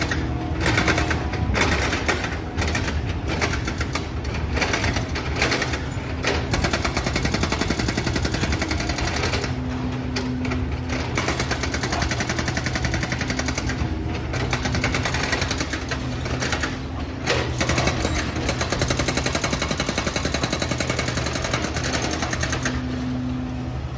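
Komatsu hydraulic excavator at work, its diesel engine running with a fast, continuous rattling clatter. The engine note steps up briefly about ten seconds in and again near the end.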